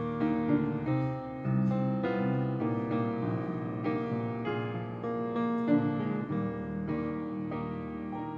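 Solo piano playing, chords and a melody line with the notes ringing on.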